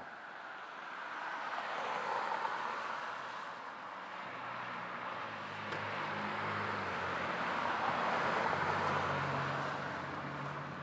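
Street traffic: cars passing on a wet road, their tyre and engine noise swelling about two seconds in and again around eight seconds. A low steady engine hum joins from about four seconds in.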